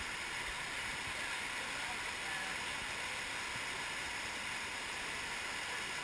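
Small waterfall pouring down a rock chute into a pool: a steady rush of falling, churning water.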